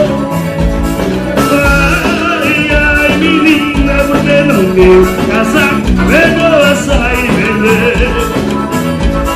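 Brazilian band music with a steady drum beat and bass line under a wavering melodic lead.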